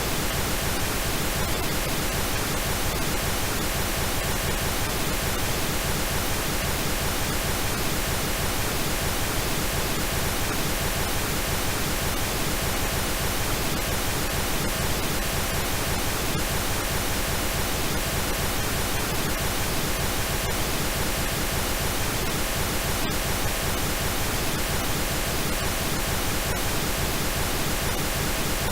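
Synthetic pink noise: a steady, even hiss across all pitches, with no change in level.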